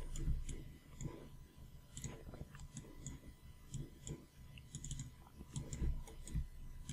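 Faint computer mouse clicks, scattered and irregular, with a few soft low thumps.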